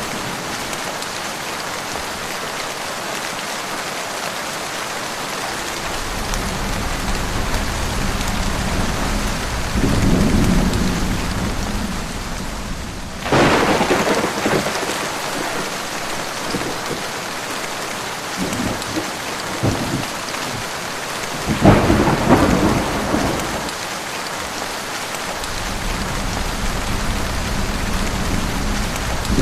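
Heavy rain falling steadily in a thunderstorm, with rolling thunder: a low rumble about a third of the way in, a sudden sharp crack just before halfway, and the loudest peal about three quarters of the way through, with more rumbling building near the end.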